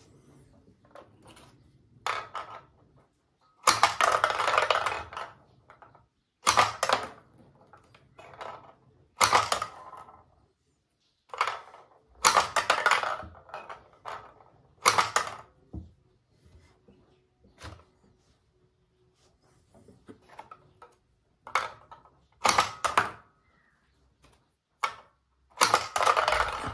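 Plastic tabletop basketball toy being played: the launcher snaps and small balls clatter against the plastic backboard, hoop and ramp and roll back down. The knocks come in irregular bursts a few seconds apart, some single, some running about a second.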